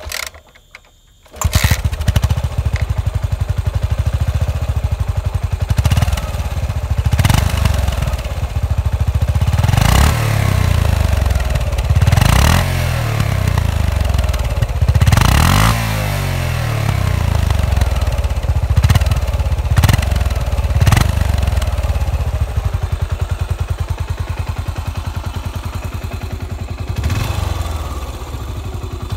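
A 2018 Yamaha SR400's air-cooled single-cylinder engine is kick-started: one kick, then it catches about a second and a half in and idles with an even, quick firing beat through the stock muffler. The throttle is blipped a dozen or so times, each a short rise and fall in revs.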